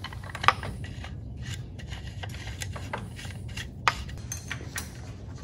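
Small metal parts and tools being handled at a motorcycle's aluminium primary case: light clicks, clinks and rubbing, with two sharper clicks about half a second and about four seconds in, over a steady low hum.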